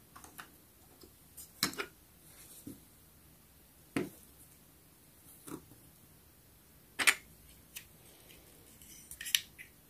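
Small plastic toy pieces of a Sylvanian Families tea trolley being handled: a few scattered light clicks and taps, with a small cluster of them near the end.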